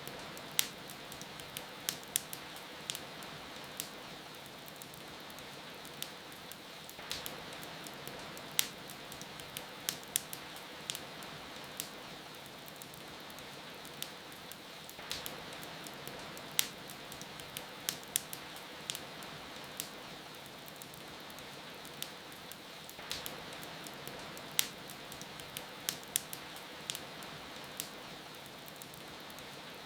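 Wood fire crackling with irregular sharp pops over a steady hiss of falling rain.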